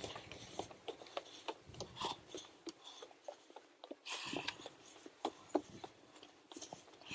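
Footsteps on a stony forest trail: irregular clicks, scuffs and crunches of shoes on rock and grit.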